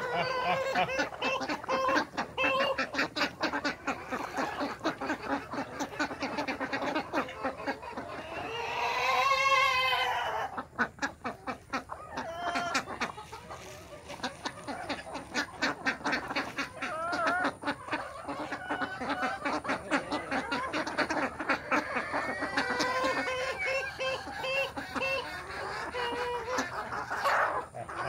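Flock of desi chickens and white ducks feeding: continuous clucking and quacking, with one long, loud call with a wavering pitch about nine seconds in.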